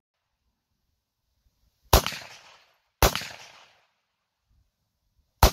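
Three shots from an M1A semi-automatic rifle, the first two about a second apart and the third near the end, each trailing off over more than half a second.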